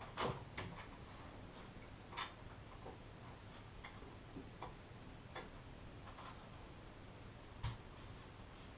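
Scattered light knocks and clicks of timber dome frames being handled and lined up against each other, a second or more apart, with a sharper knock near the end.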